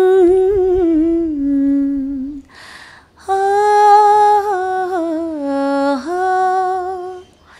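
A woman singing unaccompanied, the opening of a Nepali modern song: two long wordless phrases of held, gently wavering notes, with a quick breath between them about three seconds in.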